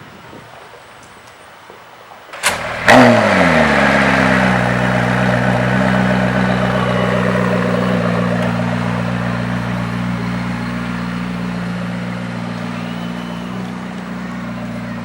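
McLaren P1's twin-turbocharged V8 cold-starting: a brief burst, then the engine catches about three seconds in with a loud flare whose pitch falls away and settles into a steady idle that slowly gets quieter.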